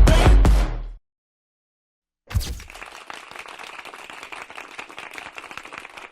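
Electronic dance music cuts off about a second in. After a second of silence, a short hit starts a dense, even crackle of many small clicks, like applause, much quieter than the music.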